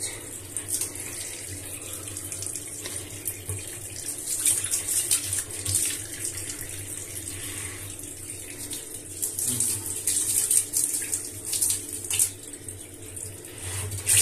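Tap water running steadily into a bathtub drain while a plastic drain-cleaning brush is pushed and worked in the metal drain grate, giving irregular scratchy rasps.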